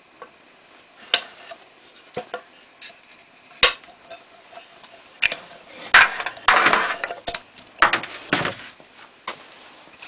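Metal and wooden hardware being handled: scattered sharp clicks and knocks, with a busier run of clattering knocks about six to eight and a half seconds in.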